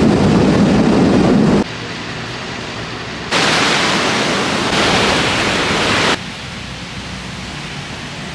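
Loud rushing wind and road noise from riding on a motorbike, cutting off about a second and a half in; a few seconds later breaking surf washes up the shore for about three seconds, then gives way to quieter steady beach noise.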